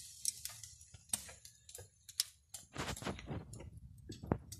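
Meat fat crackling and popping on a charcoal grill: irregular sharp clicks and pops. From about three seconds in, a low rumble joins them.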